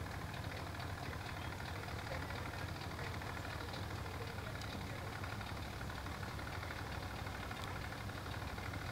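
A boat's engine idling steadily, with an even, fast low pulse.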